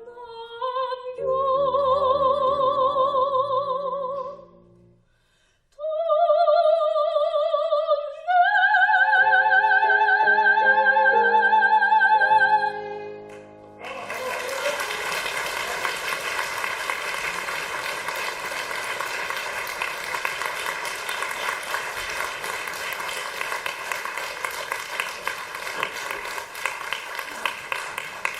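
Soprano singing the closing phrases of an art song with wide vibrato, accompanied by violin and piano, ending on a long held high note. Then, about halfway through, audience applause starts and keeps going.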